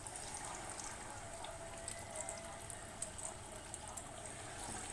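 Marinated chicken leg pieces frying in hot oil: a steady sizzle with light crackling.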